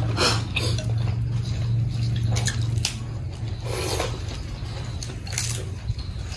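Eating sounds at a meal: utensils clinking against bowls and a few sharp clicks and short scrapes spread through, over a steady low hum.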